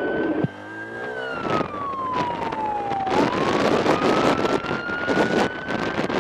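Police siren on a slow wail: it falls in pitch over about two seconds, then climbs back up. Heavy wind buffeting on the microphone of the moving police motorcycle runs under it.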